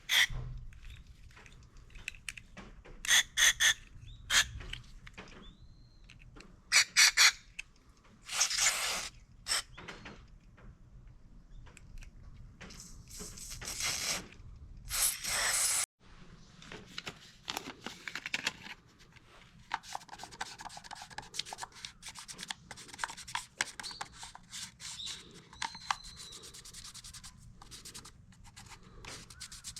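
Hand work on machine parts during a repair: sharp clicks and knocks, with several bursts of rubbing or scraping about a second long, then fainter rustling handling noise in the second half.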